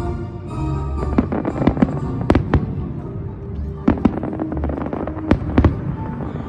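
Fireworks salute: a series of sharp bangs from shells bursting at irregular intervals, several in quick clusters, over a steady background of music.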